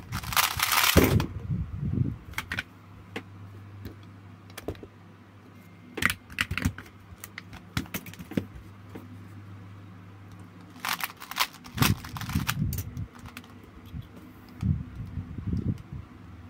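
Quick clatter of a 2x2 speedcube being turned, in short flurries of about a second, mixed with keyboard key presses. A steady low hum runs underneath.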